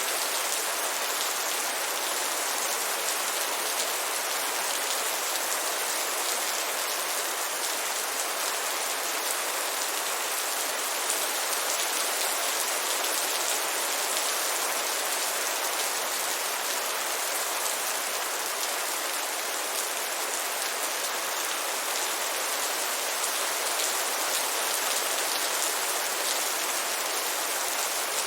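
Heavy rain falling steadily, a dense even hiss of drops on a surface with no let-up.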